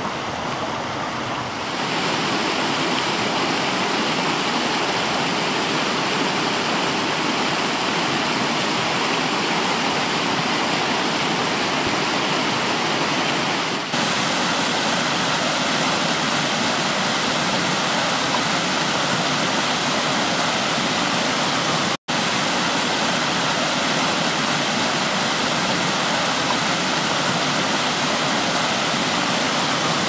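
Forest stream rushing and splashing over rocks and small waterfalls, a steady, full roar of water. It shifts slightly at a couple of points and cuts out for an instant about two-thirds of the way through.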